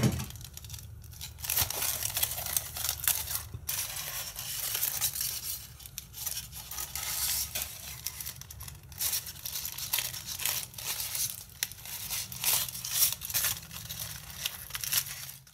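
Aluminium foil crinkling and tearing as it is peeled off red Vinamold moulding compound that has stuck to it: an irregular run of crackles with louder rips every second or so.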